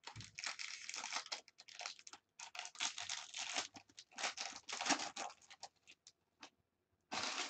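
Foil wrapper of a baseball card pack being torn open and crinkled: a run of crackling bursts for about six seconds, a short pause, then another burst near the end.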